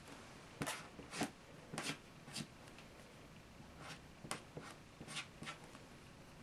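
Marker pens scratching across paper in short, quick strokes. Several come in the first couple of seconds, then a pause, then another run of strokes.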